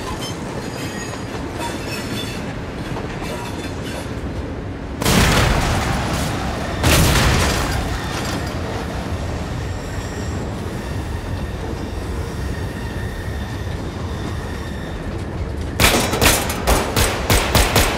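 Steady rumble and rattle of a moving train's wheels on the rails, with a loud blast about five seconds in and a second loud swell about two seconds later. Near the end comes rapid gunfire, a quick string of sharp shots.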